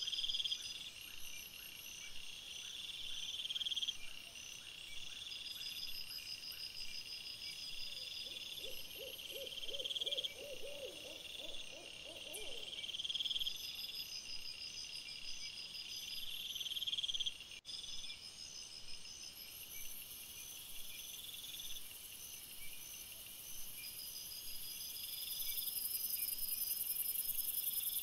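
Night insects chirping in regular, repeated high bursts. About eight seconds in, a quick run of low pulsed notes lasts about four seconds. A high hiss swells toward the end.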